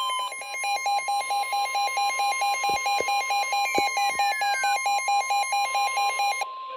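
NOAA Weather Radio's 1050 Hz warning alarm tone, a steady high tone, signalling that a new warning is about to be read. Rapid electronic beeping at about five beeps a second is layered over it and stops shortly before the end while the tone holds on.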